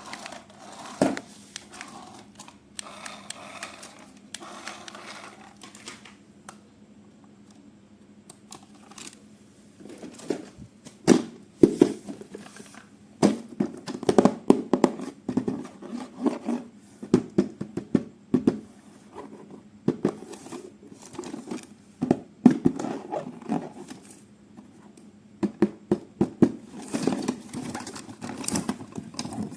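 Toy packaging being handled during an unboxing: soft crinkling and rustling for the first several seconds, then irregular clicks and knocks of handling, louder from about ten seconds in.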